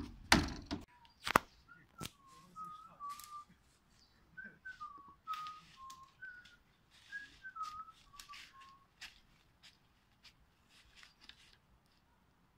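A portable toilet's plastic door bangs shut twice in the first second and a half. Then a person whistles a wandering tune of short held and sliding notes for several seconds, over scattered rustling footsteps in dry leaves.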